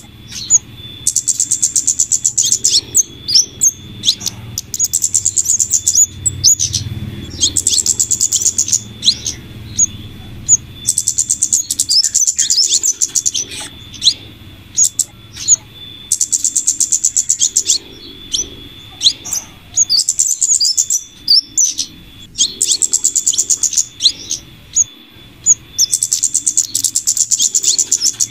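Bird-lure recording of flowerpecker calls mixed with female scarlet minivet calls. Bursts of rapid, very high-pitched trills come every few seconds, with sharp high chirps dropping in pitch between them.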